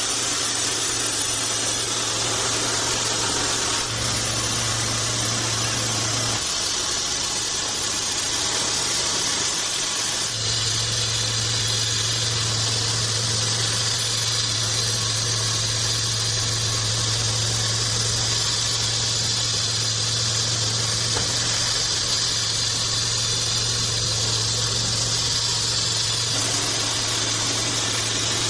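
Homemade band sawmill running steadily, a low machine hum under a high hiss. The low hum drops away about six seconds in and comes back about four seconds later.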